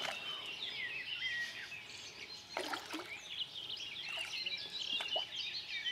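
Songbirds chirping steadily, a dense chorus of short high calls. A hooked common carp splashes and swirls at the surface close in, most clearly about two and a half seconds in.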